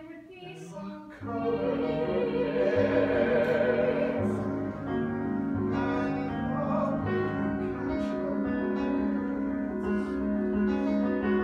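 Live musical-theatre singing, held notes with vibrato over piano accompaniment. It comes in loudly about a second in, after a quieter opening.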